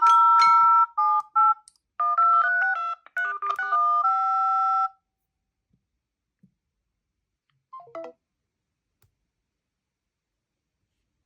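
Smartphone ringtone: a melody of clean electronic notes that stops abruptly about five seconds in. A short, quieter falling blip of tones follows about eight seconds in.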